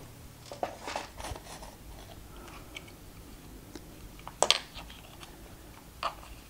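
Scattered small clicks, rustles and light knocks as hands handle an electric unicycle's control board and its wiring, with one sharper clack about four and a half seconds in.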